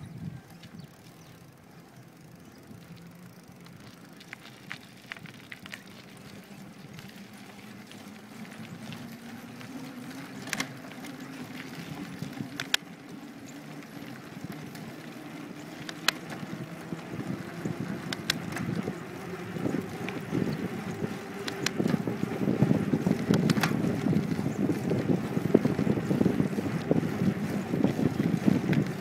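Wind buffeting the microphone of a moving phone, growing louder and rougher over the second half. Underneath there is a faint hum that slowly rises in pitch, and a few sharp clicks are scattered through it.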